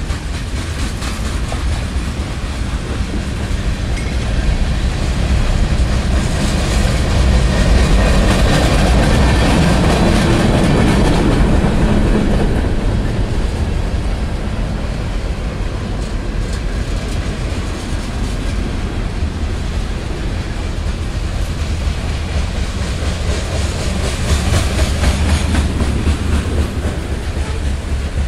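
Freight cars of a manifest train rolling past: a steady rumble of steel wheels on the rails with continuous clickety-clack, swelling louder about a third of the way in.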